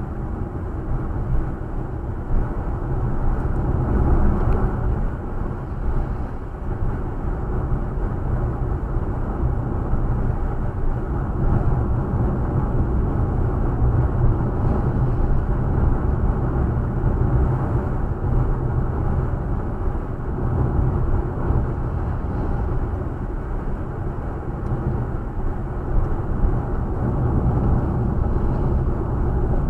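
Car driving steadily at road speed: a continuous rumble of tyres on the road surface and engine, heard from inside the cabin.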